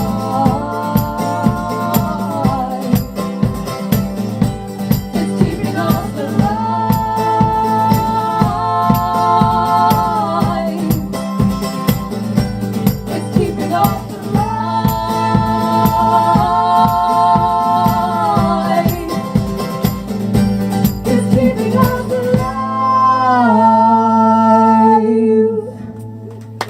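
Live band music: long held sung notes in harmony over a steady driving beat. The beat stops about 22 seconds in, leaving a final held chord and voice ringing out and fading as the song ends.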